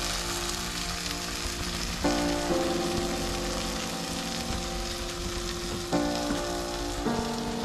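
Mahi-mahi fillets and carrots sizzling steadily in a lidded frying pan, with background music of held chords that change every couple of seconds.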